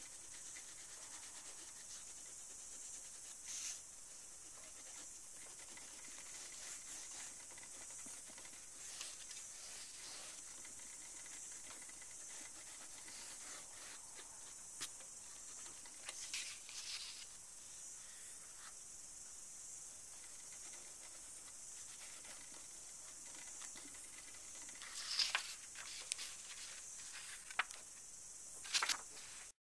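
Soft intermittent scratching of white chalk rubbed on black paper over a steady high hiss, with a few louder scrapes and rustles near the end as the sheet is handled.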